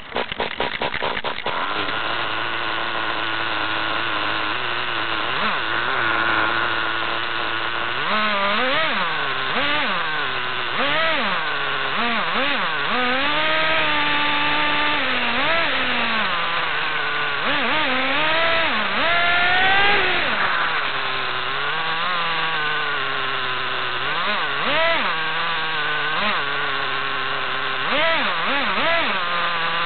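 Kyosho Fazer Pure Ten 1:10 nitro RC car's small two-stroke glow engine, heard up close from the car itself. It idles steadily for the first several seconds, then revs up and down again and again as the car is driven, its pitch repeatedly rising and falling.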